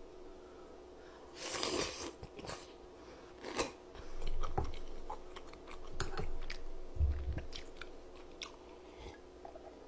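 Close-miked biting and chewing of tteokbokki, soft rice cakes and fish cake in spicy sauce, with a run of wet mouth clicks and smacks and a low thump about seven seconds in.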